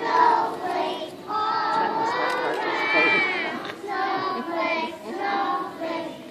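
A large group of young children singing a song together in unison, in short phrases.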